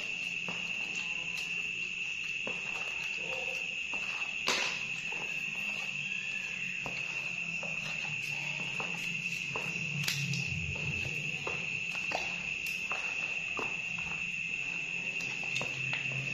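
Steady high-pitched insect trilling, like crickets, with scattered clicks and knocks over a low hum.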